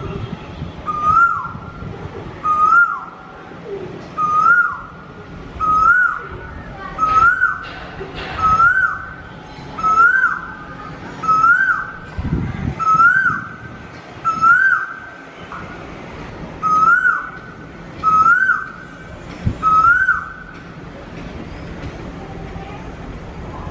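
A bird calling one rising, whistled note over and over, about every second and a half, falling silent about twenty seconds in.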